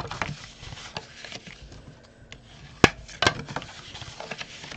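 Scored card stock being folded up along its score lines and pressed flat by hand on a wooden tabletop: papery rubbing and scraping with a few sharp taps, the loudest two just under three seconds in, close together.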